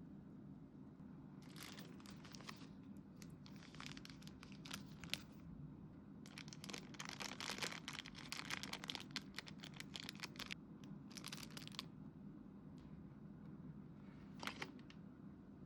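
Typing on a full-aluminium mechanical keyboard fitted with HMX Jelly Banana silent linear switches on an FR4 plate. The keystrokes come in several bursts of rapid clicks, the longest lasting about four seconds in the middle, over a faint steady hum.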